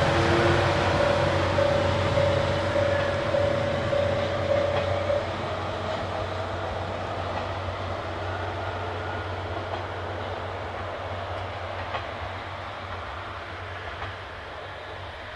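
Chizu Express HOT3500-series diesel railcar pulling away and running off down the line, its engine and wheels fading steadily as it goes, with a few faint clicks over the rail joints. A steady high tone sounds alongside until about five seconds in.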